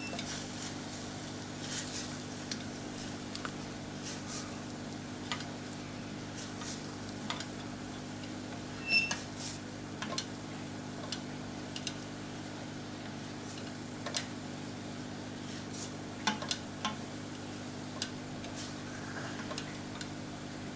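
Ground beef being stir-fried in a frying pan: a utensil stirs it and knocks against the pan in scattered clicks, over a steady low hum.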